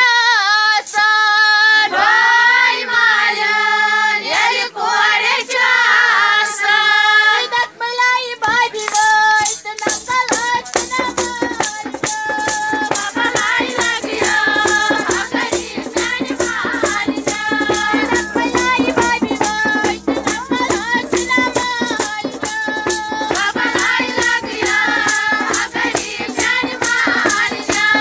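A child singing a Kashmiri folk song, at first unaccompanied; about ten seconds in, a fast, even percussion beat starts under the singing.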